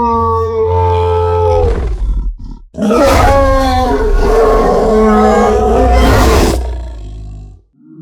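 Two long, deep monster roars from a sound effect of a wolf-like beast, pitched with a heavy low rumble beneath. The first trails off about two seconds in; the second starts a moment later and fades out near the end.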